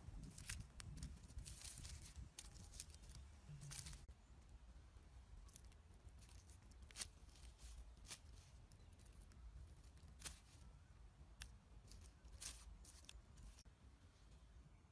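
Faint, scattered crackles and rustles of leaves being handled and torn, a dozen or so sharp snaps spread irregularly over a quiet low rumble.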